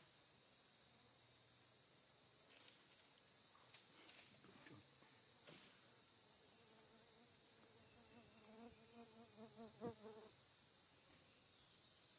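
Steady high-pitched drone of insects, cicadas or crickets, all through. About eight seconds in, a short wavering animal call sounds for a couple of seconds, ending with a single click.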